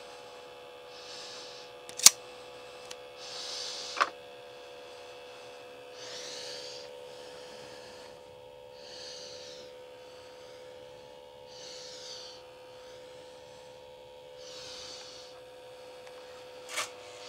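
Steady electrical hum from a toy train set, with soft hissing puffs about every three seconds. Two sharp clicks come about two seconds apart, and another near the end.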